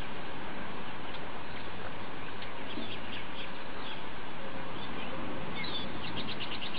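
Birds chirping over a steady background hiss, with a quick trill of rapid, evenly spaced notes near the end.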